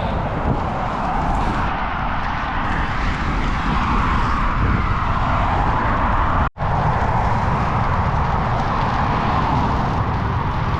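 Steady wind rush over the microphone while riding a bicycle at speed, with a brief sudden cut-out about six and a half seconds in.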